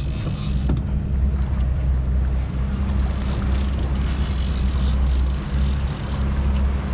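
Boat engine running steadily with a low hum, under the rush of wind and water.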